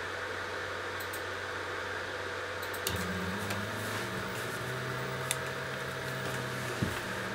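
10 W blue diode laser cutter running: a steady fan hum, then from about three seconds in the stepper motors whine in low steady tones that change pitch in steps as the gantry starts a slow cut at 100 mm per minute.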